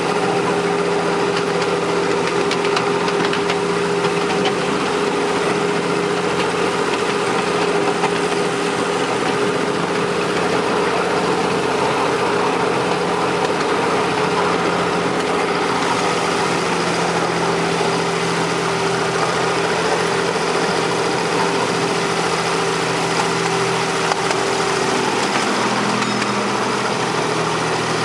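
Engine of a 7¼-inch gauge miniature GP40-outline diesel locomotive running steadily as it hauls a ride-on train, heard from the car just behind it, with a steady drone over the rolling noise of the wheels on the track. The drone's pitch shifts slightly near the end.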